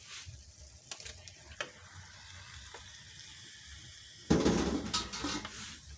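Raw squid going into a metal wok of thickened soy-vinegar adobo sauce and being stirred with a wooden spatula: sizzling with a few light knocks of the spatula on the wok, then a loud burst of sizzling and scraping about four seconds in that fades over a second or so.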